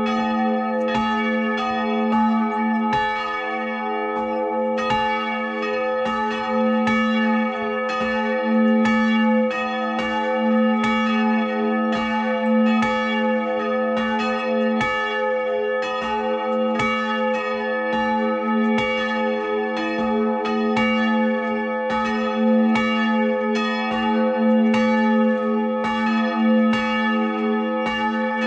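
Full peal of two swinging church bells, rung by hand ropes and heard close up in the belfry: a 700 kg bell tuned to a1, cast in 1614, and a smaller e2 bell cast in 2016. Their clapper strikes come less than a second apart over a steady, sustained ringing hum.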